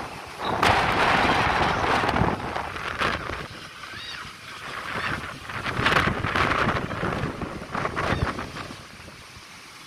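Storm wind buffeting the microphone in strong gusts. The loudest gusts come about half a second in and again around six seconds, then the wind eases near the end.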